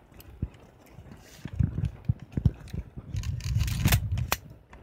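Handling noise from a Canon A-1 film camera being held and fingered close to the microphone: uneven rubbing and soft knocks, getting busier a little past the middle, with a couple of sharp clicks near the end.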